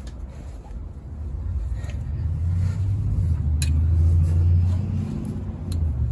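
A low, engine-like rumble swells to its loudest a little past the middle and then eases off. Over it come a few faint sharp clicks of metal, as a spanner turns the nut on a hub-seal press tool.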